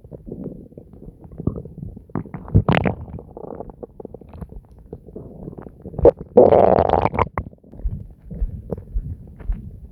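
Human stomach growling and gurgling during digestion, recorded close and distorted: a steady run of low gurgles and small pops, with a louder gurgle about three seconds in and a longer, louder one lasting about a second from around six seconds.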